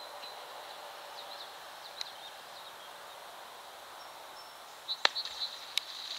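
A beaver smacks the water with a sudden loud splash about five seconds in, followed by a few smaller splashes. Birds chirp faintly over a steady outdoor hiss. The filmer takes the beaver's splashing for a display meant to keep his attention away from its young.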